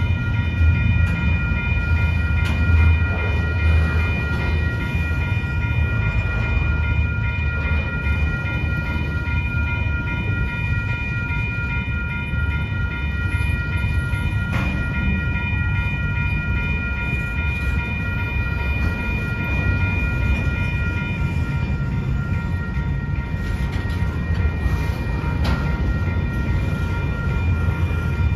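Double-stack intermodal container train rolling past close by: a steady heavy rumble of steel wheels on rail, with a steady high-pitched ringing tone over it, part of which fades out about three quarters of the way through.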